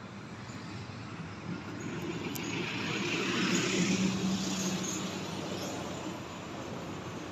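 A motor vehicle passing by, its engine and tyre noise swelling to a peak about four seconds in and then fading away.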